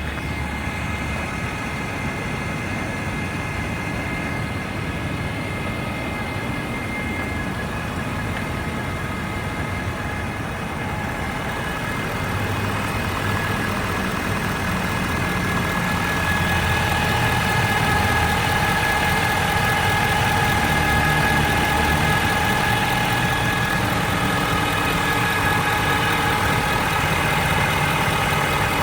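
2013 Ford F-350's 6.7-litre Power Stroke V8 diesel idling with a loud, steady high-pitched whine over the engine note. The whine comes on only once the engine is warm, and its cause is undiagnosed. It grows louder about halfway through, holding the same pitch.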